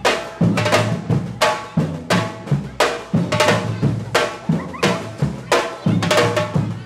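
Batucada drum group playing a driving rhythm, sharp drum strikes several times a second over deep bass-drum beats.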